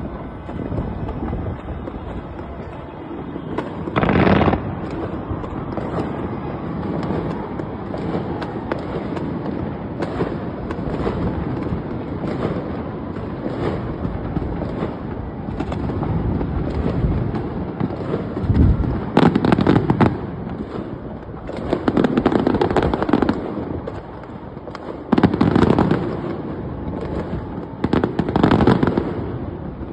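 New Year fireworks going off without a break: a steady crackle of many small bangs, with louder bursts about four seconds in and several times in the second half.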